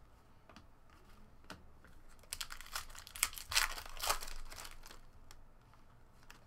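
Foil trading-card pack wrapper crinkling and tearing as it is opened and handled, in a cluster of crackles over about two seconds near the middle, after a few light clicks of cards being handled.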